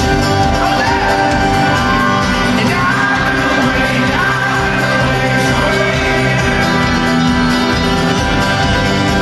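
Live folk-rock band playing loudly, with acoustic guitar and upright bass, over singing and shouts from the crowd, heard from within the audience.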